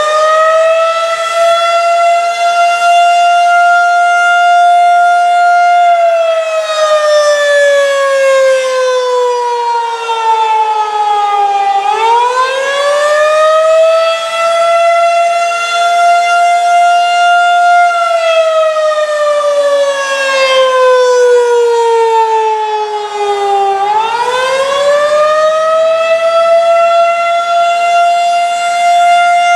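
Federal Signal 2001-SRN outdoor warning siren sounding the attack signal up close. It holds a high pitch, slides down over about six seconds, winds quickly back up and holds again, going through this rise-and-fall cycle about twice.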